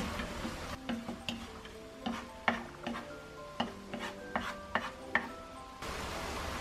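A spatula stirring and scraping baby squid and walnuts through a thick, reducing soy-syrup glaze in a nonstick wok. There are about nine sharp clicks and pops, each with a brief ring, across the middle few seconds.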